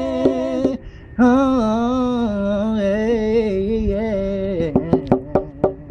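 A man singing a long held note with vibrato over strummed acoustic guitar. After the note ends, the guitar strums go on alone in quick even strokes.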